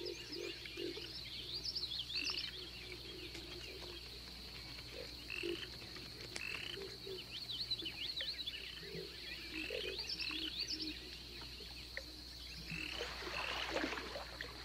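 Swamp frog chorus: many short, low croaking calls repeating irregularly, over a steady high-pitched trill, with scattered high chirps.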